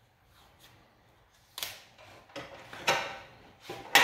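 Handling noise from work at an air conditioner's pipes and wiring: three sudden scraping, rustling sounds that each fade quickly, starting about a second and a half in and growing louder toward the end.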